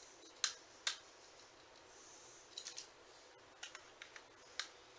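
Light, irregular clicks and taps of small plastic parts being handled, about eight sharp clicks scattered through the few seconds: a TrackMaster toy engine's body being fitted back onto its chassis.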